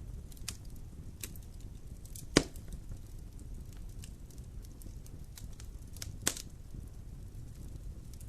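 Wood fire burning in a fireplace: a low steady rumble with scattered crackles and two loud pops, about two seconds in and about six seconds in.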